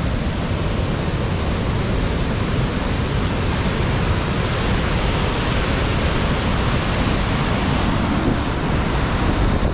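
Fast floodwater pouring over a drain, a loud, steady rush of water.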